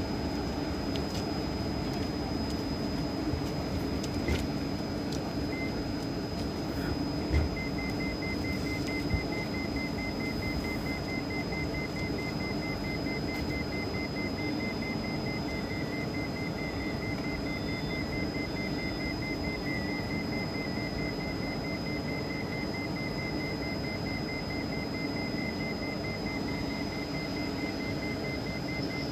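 Steady electrical hum and a thin high whine from electric trains at a platform, with a rapid, high electronic beeping that starts about seven seconds in and keeps going. A few light knocks come in the first several seconds.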